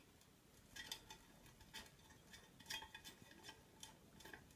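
Faint, scattered small metal clicks and clinks from a nut being fitted onto the bolt that holds a scooter's brake to the deck.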